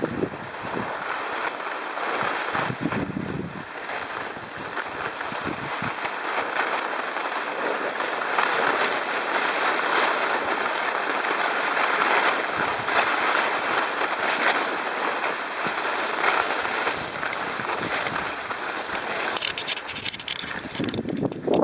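Skis sliding and scraping over packed snow during a downhill run, a steady hiss that grows a little louder in the middle, with some wind on the microphone.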